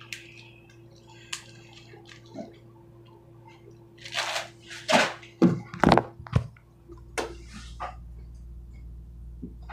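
A clear plastic bag of water being handled and closed by hand: plastic crinkling, with a cluster of loud, sharp crackles about four to six seconds in.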